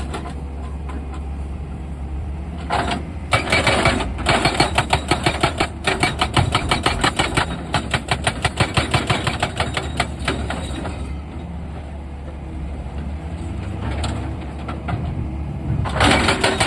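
Excavator's diesel engine running steadily, with a rapid, evenly repeated metallic clatter from about three seconds in until about ten seconds, and again near the end.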